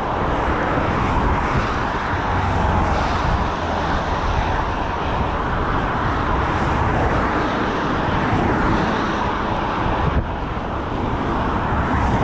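Steady road noise of cars passing close by on a dual carriageway.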